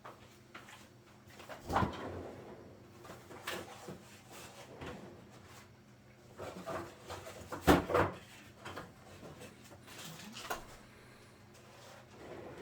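A few clunks and knocks of kitchen doors being opened and shut. The loudest comes about eight seconds in, with another about two seconds in.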